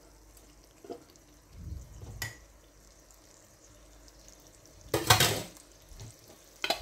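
Tomatoes cooking in hot oil and spice masala in a steel pot: a quiet simmer broken by scattered pops and spatters, the loudest burst about five seconds in and a few sharp pops near the end.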